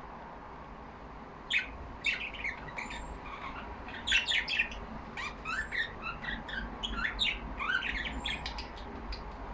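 Budgerigars chattering in rapid, high chirps, starting about a second and a half in over a faint steady hiss.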